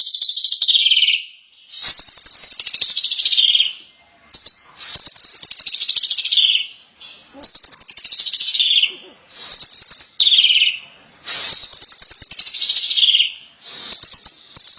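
Javan myna (jalak kebo) singing: a harsh, rapid rattling phrase about a second and a half long that slides down in pitch at its end, repeated about six times with short pauses between.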